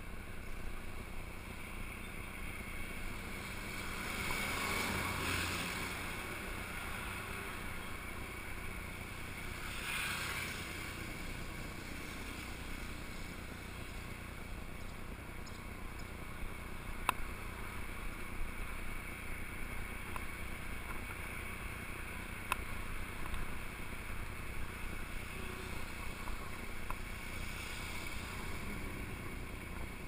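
Steady wind and road noise on a bicycle-mounted GoPro while riding a mountain bike on a paved street, swelling louder twice, about five and ten seconds in. A few sharp ticks come later.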